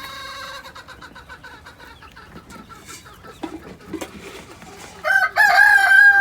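Chickens clucking, with a run of short calls in the first couple of seconds. About five seconds in, a rooster starts a loud, long crow.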